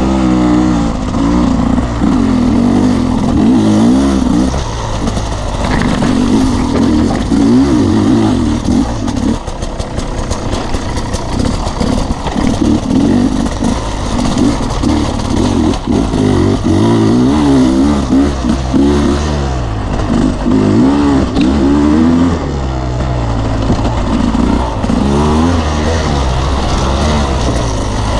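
Off-road dirt bike engine under way, its revs rising and falling again and again as the rider works the throttle along a rough trail.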